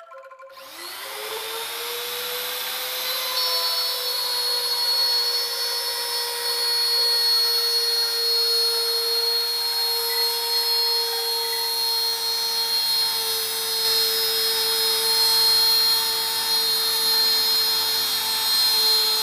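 Electric trim router starting up about half a second in, its whine rising to speed, then running steadily as it cuts a groove through the HPL laminate down to the plywood of a door panel.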